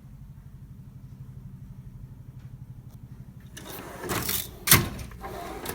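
A low, steady mechanical hum with a quick rhythmic pulse. About three and a half seconds in, a steel tool-chest drawer slides open on its runners with a rattle and one sharp knock.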